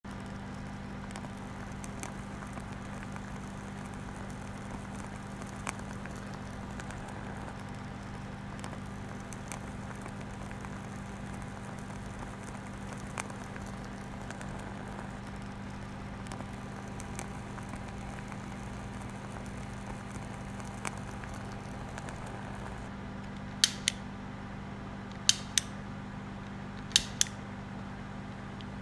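A steady low hum with faint scattered ticks. Near the end come sharp clicks in quick pairs, three pairs about a second and a half apart.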